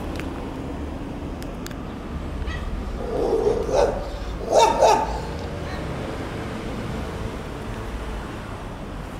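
A dog barking: one short run of barks about three seconds in and another around five seconds, over a steady low outdoor rumble.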